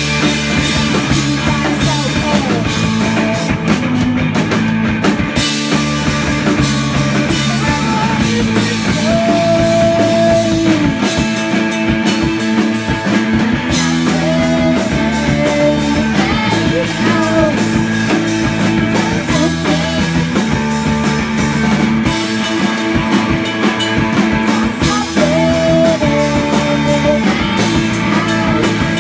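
Live rock band playing loudly: drum kit, electric bass and electric guitar, with vocals sung into microphones.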